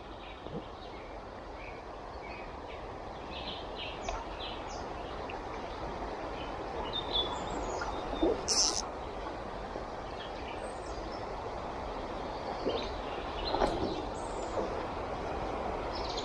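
Steady rush of a river flowing, with short bird chirps scattered over it. Two short, sharp sounds come just past halfway.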